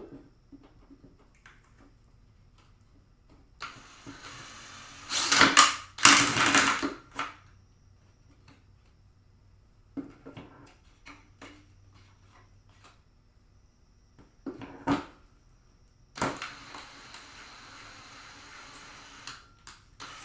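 Drill driving a 120 mm hole saw, cutting in two runs of a few seconds each: one about four seconds in, the other near the end. Clicks and a sharp knock of handling come between the runs.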